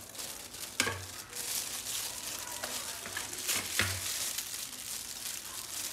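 Kitchen knife slicing through a ripe melon held in plastic-gloved hands, with the crinkle of the disposable gloves throughout. Two sharp knocks, about a second in and again near four seconds, as the blade comes down.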